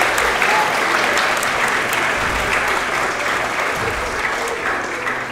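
Audience applauding, the clapping thinning and fading away toward the end.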